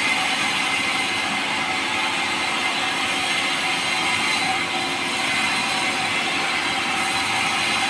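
Power saw running steadily as it cuts through soft, light pulai timber, a continuous even whine over a rushing noise.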